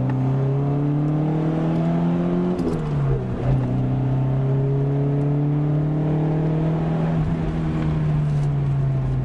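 Nissan 240SX's 2.4-litre single-overhead-cam four-cylinder (KA24E) pulling at about half throttle, freshly tuned up. Its pitch climbs, drops suddenly about three seconds in as with a gear change, climbs again, then eases down near the end.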